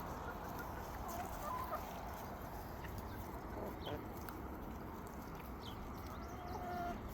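Free-range chickens clucking faintly, with scattered short calls.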